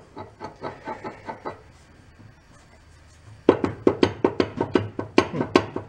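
Rapid clunking knocks from the crankshaft of a Kohler Command 18 hp engine being rocked back and forth by hand in its open crankcase: a light run of knocks, a pause, then a louder, faster run. The crank is stuck and will not lift out of the case.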